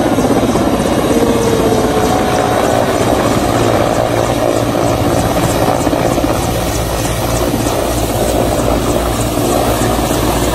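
Mil Mi-8/Mi-17-family twin-turbine helicopter descending and hovering low to land: steady, loud turbine noise under the fast, even beat of the main rotor.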